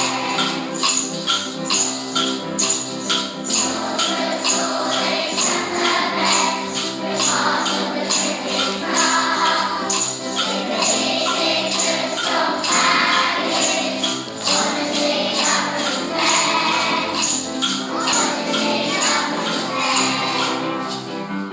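Upbeat background music with a steady jingling, tambourine-like beat about twice a second over sustained pitched parts.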